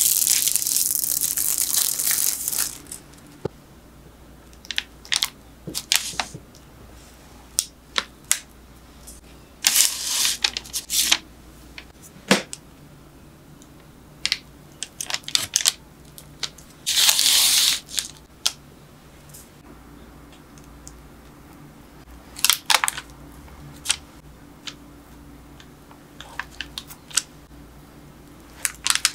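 Crinkly kitchen wrap being handled in three long rustles, one at the start, one about ten seconds in and one about seventeen seconds in. Between them, a kitchen knife presses through soft kinako dough and clicks against the wooden cutting board in scattered sharp taps.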